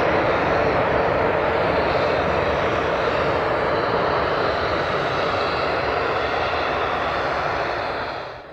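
Tupolev Tu-154M's three tail-mounted Soloviev D-30KU-154 turbofans running at high power on the runway, a loud steady jet noise that fades away near the end.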